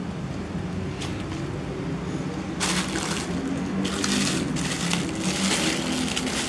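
Crinkling and rustling of a clear plastic bag of toy molds and utensils being handled, starting about two and a half seconds in and going on in bursts, over a low steady hum.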